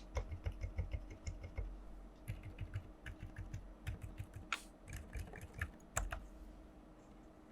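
Typing on a GK68 mechanical keyboard with silent Alpaca linear switches: quick runs of muted keystrokes that thin out to scattered presses, with a couple of sharper clacks, and stop about a second before the end.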